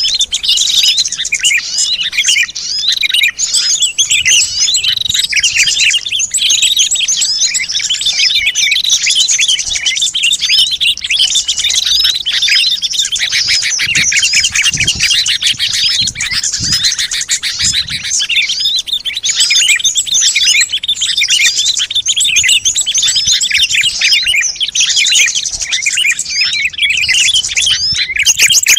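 A noisy mixed flock of small songbirds chirping and twittering in a dense, unbroken chorus, the kind of bird-lure (pikat) recording played to draw wild small birds in.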